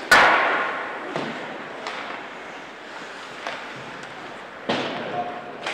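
Ice hockey play: a loud bang just after the start that rings out for about a second, then several lighter clacks of sticks and puck over a steady background murmur.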